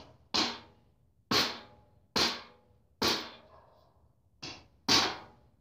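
Hammer driving a nail into a walking stick: six sharp strikes about a second apart, one of them lighter, each ringing briefly.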